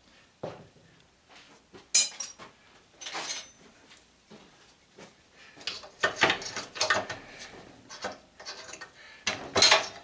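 Hand tools clinking, scraping and knocking against the metal of a belt/disc sander being taken apart by hand: irregular clatter, with a cluster of knocks in the middle and the loudest knocks near the end.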